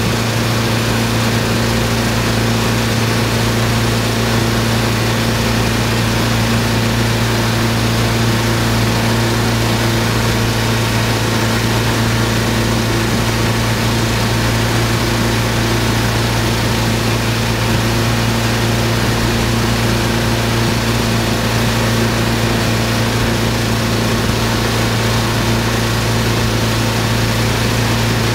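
Tow boat's engine running steadily at speed, heard from on board, a constant low drone over the steady rush of the churning wake.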